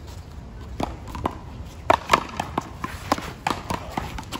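Paddleball rally: sharp cracks of the ball off paddles and the concrete wall, at uneven intervals, mixed with the players' quick footsteps on the court. The loudest pair of hits comes about two seconds in.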